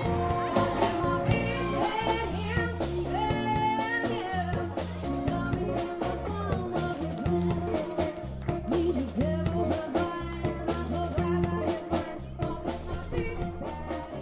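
Rock-and-roll/blues band music: a singing voice over electric guitar and drum kit, starting to fade out near the end.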